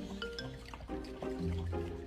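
Soft background music: a gentle melody of short notes over a low bass line.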